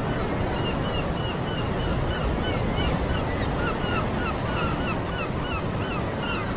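A flock of birds calling over and over, many short downward-gliding calls overlapping, over a steady rushing noise.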